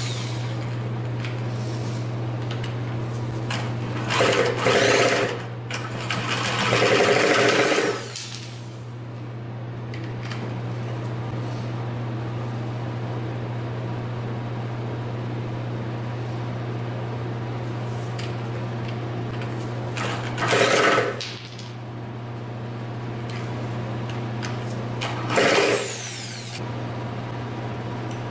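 A drill spinning over the two-stroke 50cc engine of a Cobra CM50 mini dirt bike in four bursts: two longer ones about four and six seconds in, then two short ones around twenty and twenty-five seconds in. The engine turns over without firing: it does not start, though the cylinder is primed with mixed gas. A steady low hum runs underneath.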